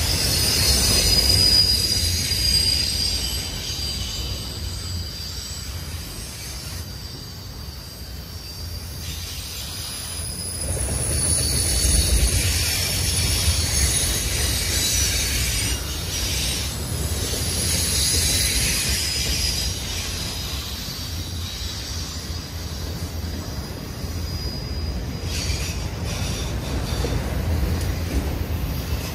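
Loaded autorack and manifest freight cars rolling past on rail: a steady low rumble of wheels and cars, with high-pitched wheel squeal that comes and goes. The squeal is strongest near the start and again about two-thirds of the way through.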